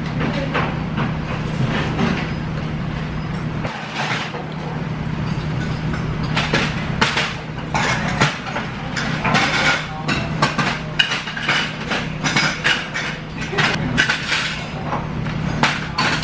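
Metal spoon and chopsticks clinking against a pot of pork soup and a steel rice bowl while the soup is stirred and eaten, the clinks coming thicker after about six seconds. A steady low hum of the room lies underneath.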